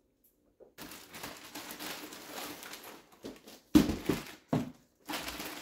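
Packaging rustling and crinkling as packages are handled, with three short thuds in the middle, the first the loudest.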